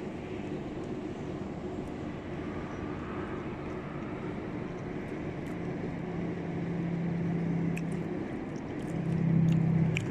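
Steady low hum of a running vehicle engine, with a louder low drone swelling in about halfway through and again near the end.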